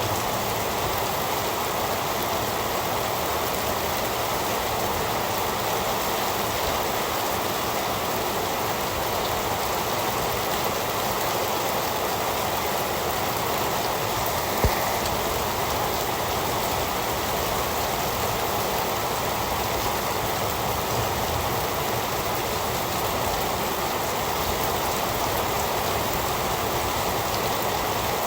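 Heavy rain falling steadily, an even, unbroken hiss of drops. A single sharp tick sounds about halfway through.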